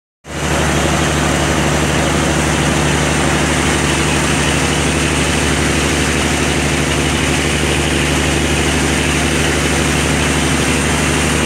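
A boat engine running steadily under way, a constant low drone over the rush of the churning wake.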